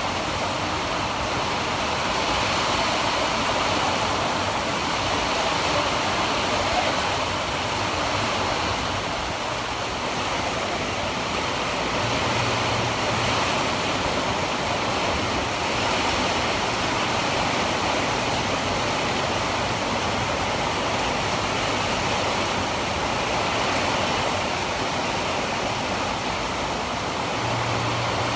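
Heavy rainstorm pouring down steadily, a dense even hiss of rain.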